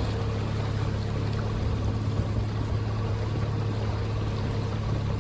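Small boat's outboard motor running steadily with a constant low hum, with water washing along the hull.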